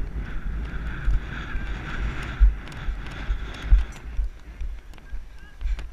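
Wind buffeting a helmet-mounted camera's microphone while a horse canters, with the uneven thuds of its hooves and movement on the arena surface.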